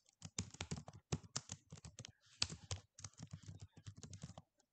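Typing on a computer keyboard: a quick, uneven run of key clicks as a line of text is typed.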